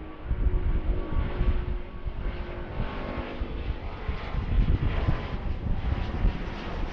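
Rolls-Royce Trent XWB turbofans of an Airbus A350-900 at takeoff power, a deep, uneven jet rumble.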